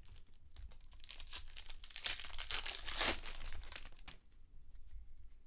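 Crinkling and tearing of a foil trading-card pack wrapper being handled, loudest a couple of seconds in and stopping about four seconds in.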